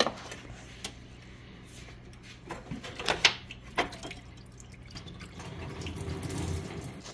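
Coolant dripping and trickling from the opened thermostat housing of a Jeep Cherokee's 4.0-litre engine, with a few sharp clicks of the old thermostat and metal parts being worked loose, most of them about three seconds in.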